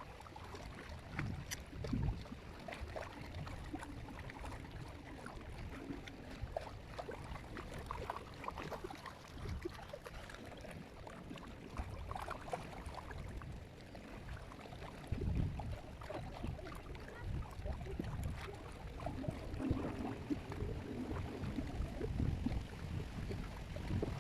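Wind buffeting the microphone outdoors: an uneven low rumble that swells and fades in gusts, with a faint hiss above it.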